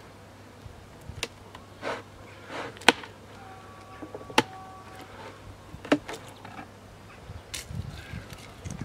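Metal hive tool prying and scraping at the wooden box and frames of a mini beehive: a series of sharp clicks and knocks, the loudest about three seconds in, over a low buzz of honeybees.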